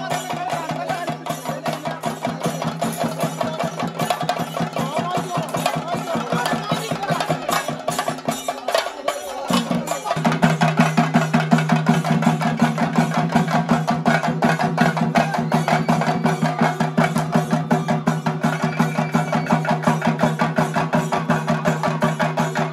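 Fast, dense theyyam drumming on chenda drums, over a steady held tone that breaks off briefly about nine seconds in.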